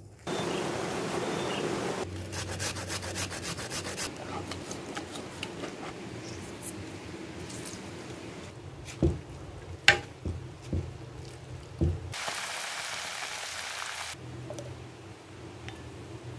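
A run of short harvesting and food-preparation sounds: rubbing and scraping in soil at the start, then a hand squeezing and splashing in a bowl of grass jelly liquid with a few sharp knocks. A short stretch of steady hiss comes near the end.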